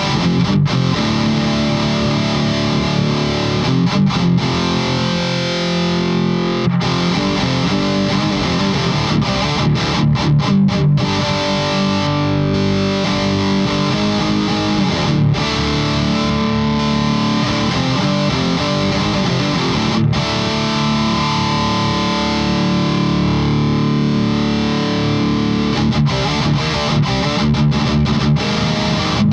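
Electric guitar riffing with overdrive distortion through a Tube Screamer-style overdrive pedal, with brief stops between phrases.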